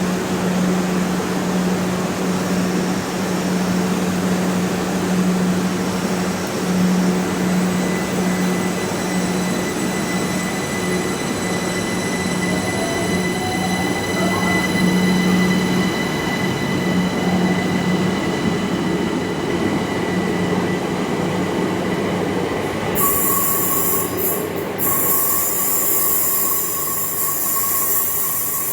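Passenger train at a station platform, running with a steady low hum. About 23 seconds in, a loud hiss begins and holds, with a steady tone under it.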